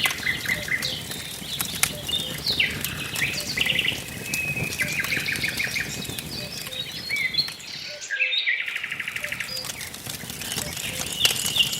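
Several songbirds singing, with short chirps and rapid trills, over a crackling wood fire that gives off scattered sharp pops. The low fire noise briefly drops away about eight seconds in.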